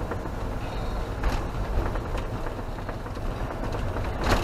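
Motorhome engine and tyre noise heard from inside the cab while driving on wet asphalt: a steady low rumble with road hiss, broken by a few short clicks or knocks.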